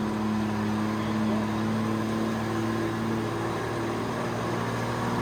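Vehicle engine running steadily, heard from on board a moving vehicle: an even, low hum with no changes.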